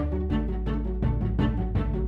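Instrumental background music with a steady beat and sustained bass notes.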